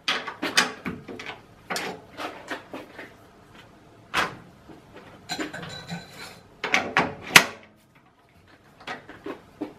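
Irregular metal clicks and knocks of parts being handled on a stopped lathe: a machined aluminium flange taken off a threaded fixture plate on the chuck and the next one fitted. The sharpest click comes about seven seconds in.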